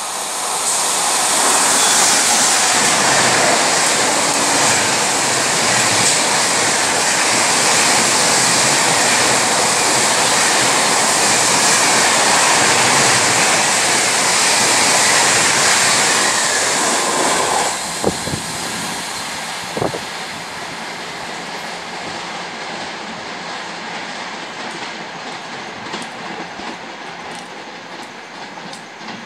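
12301 Howrah–New Delhi Rajdhani Express passing through a station at high speed without stopping: loud, steady rail noise of the coaches running by. It drops off sharply about 17 seconds in as the last coach passes, with a couple of sharp clicks and then a fading rumble.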